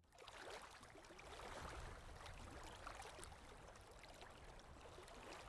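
Faint, steady rushing noise with scattered small clicks.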